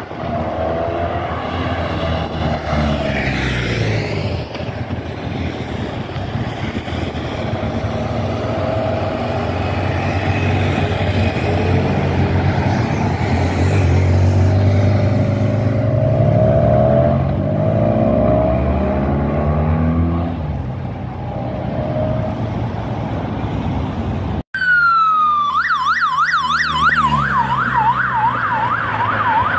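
Engines of a police motorcycle and car convoy driving past, their pitch sliding as each vehicle goes by. After a sudden break about 24 seconds in, a police siren on yelp sweeps rapidly up and down, about two to three cycles a second.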